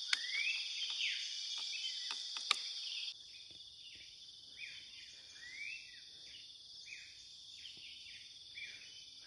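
Steady high-pitched drone of insects in forest, with short bird calls repeating every second or so, each sweeping up then dropping. Two sharp clicks sound, one at the start and a louder one about two and a half seconds in, and the whole ambience drops in level at a cut about three seconds in.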